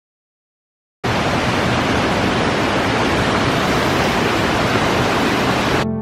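Water of a tall waterfall pouring down: a dense, steady rush that starts abruptly about a second in and cuts off just before the end.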